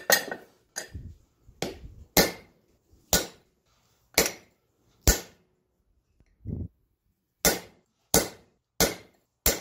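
Hand hammer striking hot 5160 spring steel on an anvil: about a dozen sharp blows at an uneven pace, each with a short metallic ring, one of them duller about six and a half seconds in.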